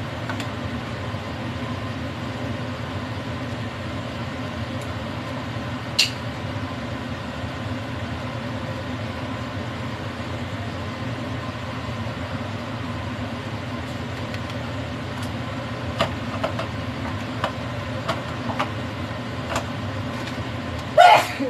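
Steady low mechanical hum of kitchen appliances, with a few sharp clinks of cooking utensils and a louder clatter near the end.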